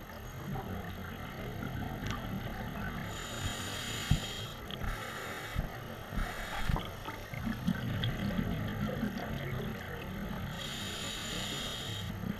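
Scuba regulator breathing underwater. Inhalation hisses through the regulator about three seconds in and again near the end, and exhaled bubbles gurgle and rumble in between.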